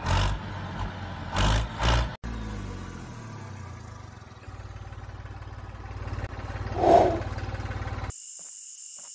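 An engine running with a fast, even low chugging, after a few loud low thumps in the first two seconds; a brief louder burst comes about seven seconds in. Near the end it gives way to a steady high trill.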